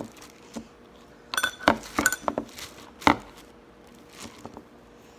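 A metal straw clinking and tapping against a mixing bowl, a cluster of sharp clinks with a brief metallic ring about a second and a half in and one more sharp clink about three seconds in. Soft handling noises of the slime follow near the end.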